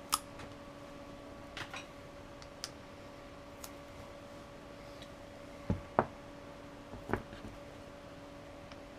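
Scattered sharp metal clicks and snaps as spot-welded nickel tabs are pulled off 18650 lithium-ion cells, with two louder, duller knocks about six seconds in. A steady low hum runs underneath.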